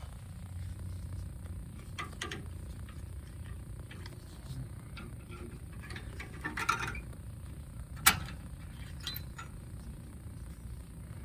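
Metal clinks and clatter of hand tools working on a brake caliper and its retaining clip. A sharp metallic click about eight seconds in is the loudest sound.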